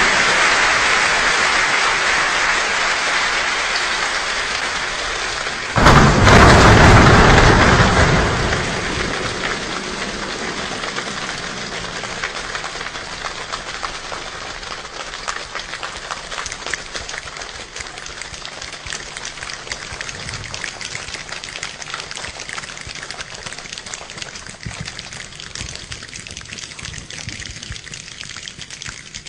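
A choir imitating a rainstorm with their hands: a dense patter of rain-like rustling. About six seconds in comes a sudden loud, deep burst like a thunderclap. After it the rain slowly dies away to thin, scattered clicks.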